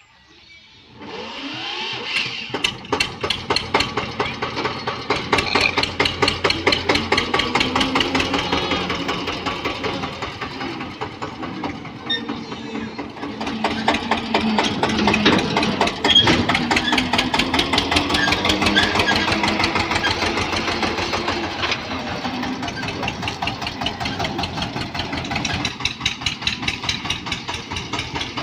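Eicher 242 tractor's diesel engine starting about a second in, then running with a fast, even beat as it pulls a trolley away.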